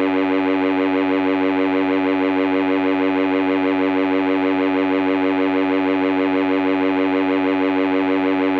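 Superior toy organ-synth holding a single buzzy note, rich in overtones, with a slight regular pulse in its loudness.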